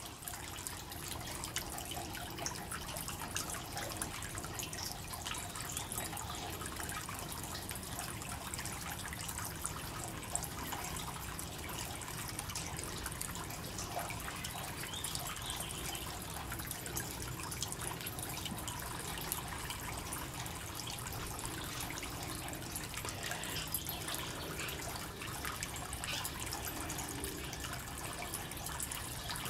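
Small garden fountain's water trickling and dripping steadily off its rim in thin streams, with many small drips.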